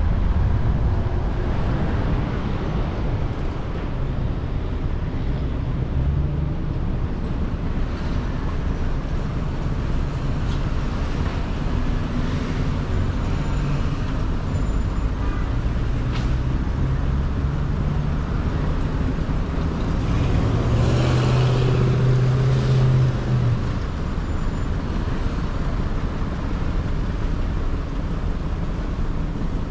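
City street traffic heard from a moving car: a steady low road rumble, with a louder vehicle engine passing close by about twenty seconds in.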